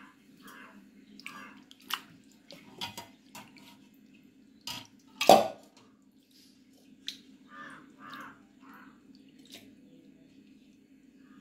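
Hands swishing and rubbing peeled prawns in a steel bowl of water, washing them clean: uneven splashes and drips, with one sharper, louder sound about five seconds in.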